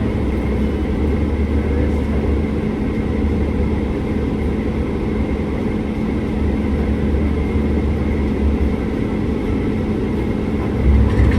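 Steady machine hum with a low rumble and a constant tone, swelling briefly near the end.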